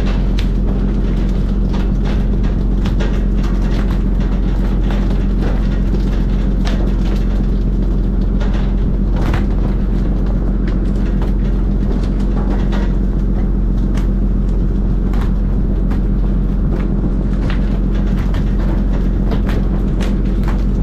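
Fishing vessel's engine running with a steady low drone, with scattered short slaps and knocks as skipjack tuna are hauled from the water and land on the wet steel deck.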